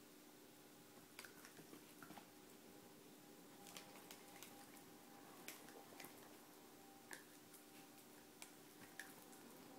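Faint, irregular soft knocks, clicks and squishy chewing sounds of a miniature pinscher puppy mouthing and tossing a rubber Kong toy in a fleece dog bed, over a faint steady hum.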